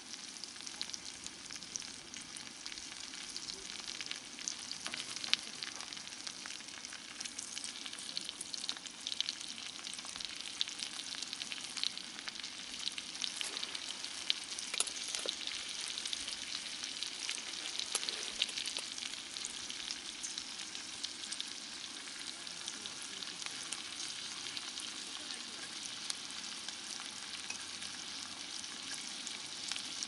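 Vegetables and bacon sizzling in oil in a small cast-iron skillet on a gas camping stove: a steady frying hiss full of small crackles, a little louder in the middle.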